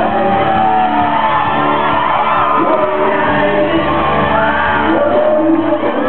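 Live rock band playing loudly, with a man singing into a microphone and fans close by shouting and whooping.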